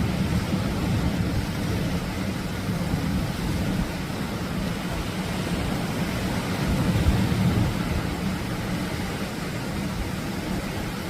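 Atlantic surf breaking on a beach: a steady wash of noise that swells briefly about seven seconds in.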